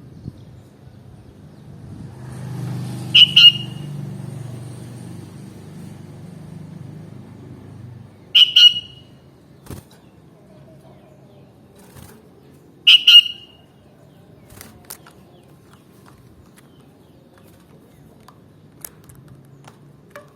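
Sooty-headed bulbul giving three short, sharp calls about five seconds apart, each a quick double note, over a low background rumble that fades after the first call.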